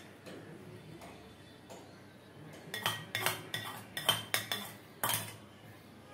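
Utensils clinking and knocking against plates and bowls: quiet at first, then from about halfway a quick string of sharp clinks, some ringing briefly.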